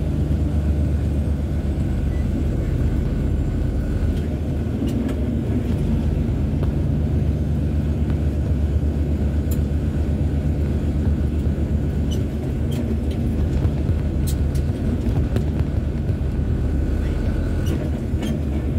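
Log truck's diesel engine running at a steady drone with road rumble, a few faint clicks scattered through.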